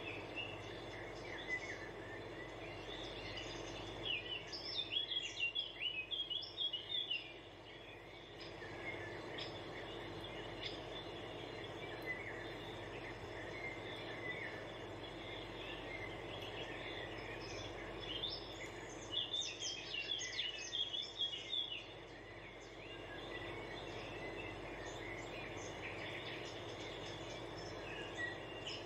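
Small birds chirping, busiest in two spells about four and eighteen seconds in, over a steady background hiss and low hum.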